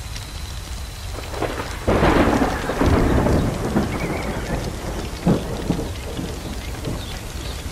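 Thunder over a steady hiss and crackle. A loud clap comes about two seconds in, rolls on for a second or two and dies away, and a shorter sharp crack follows a little after five seconds.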